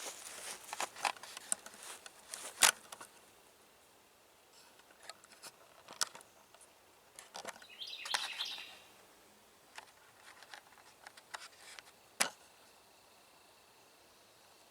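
Handling noise of a camera tripod being set up: scattered clicks and knocks, with a sharp clack between 2 and 3 seconds in and another near the end, and a brief rustle in the middle.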